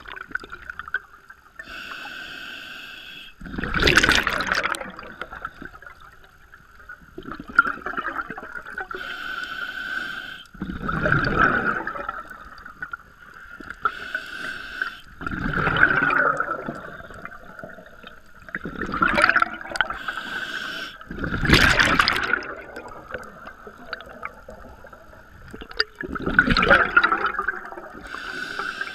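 Scuba diver breathing through a regulator underwater: each breath is a hissing inhale followed by a loud gush of exhaled bubbles, about five or six breaths in all, over a steady thin high whine.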